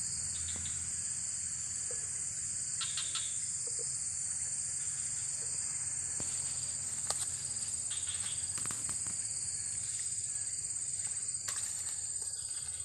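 Insects droning in a steady, high, even buzz, with a few short knocks and rustles close by.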